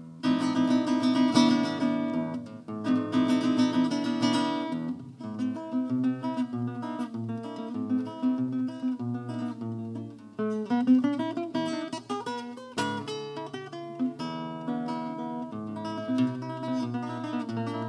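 Solo nylon-string classical guitar played live: a plucked melody over bass notes, with full strummed chords near the start and a quick rising run of notes about eleven seconds in.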